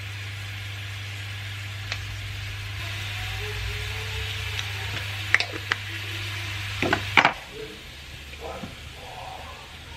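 Chopped spring onions sizzling in oil in a nonstick frying pan, cooking into scallion oil, as a silicone spatula stirs them, with a few sharp scrapes and taps of the spatula on the pan between about five and seven seconds in. A low hum runs under the sizzle, and both drop away suddenly about seven seconds in.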